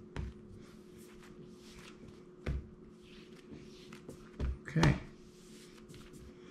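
A ball of whole wheat pizza dough pushed, dragged and tucked by hand on a damp stone countertop: a few dull knocks and soft rubbing, the loudest knock about five seconds in. A faint steady hum runs underneath.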